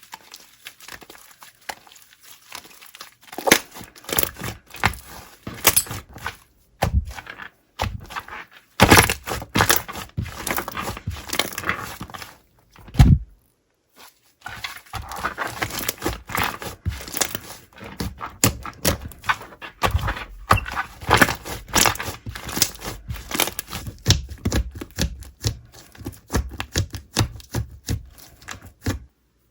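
Slime being squeezed and pressed by hand, giving dense, irregular crackling and popping clicks with a short pause about halfway through.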